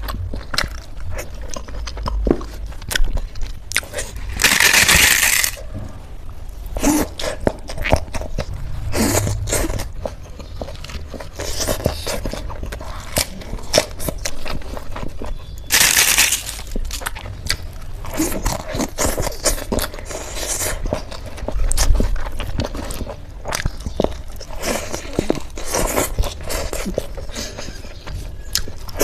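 Close-miked eating: crunching, chewing and scraping in a dense run of crackly clicks, with two longer bursts of crackling, one about four seconds in and one around the middle.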